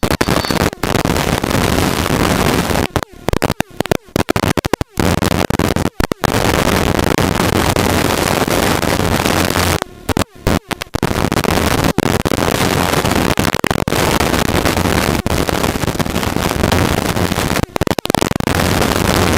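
Helicopter in flight heard from the cockpit: engine and rotor noise as a loud steady rush over a low hum, cutting out abruptly for split seconds several times.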